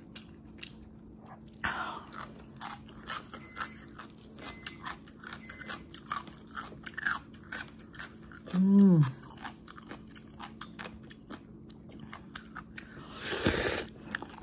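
Close mouth sounds of eating: crisp crunching and chewing of pickled yellow radish (danmuji), many small crunches in a row. About halfway through there is a short falling "mmm" hum, and near the end a brief loud slurp of noodles.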